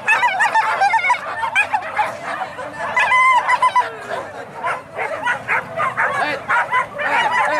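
A pack of hunting dogs yelping and barking without a break, many voices overlapping.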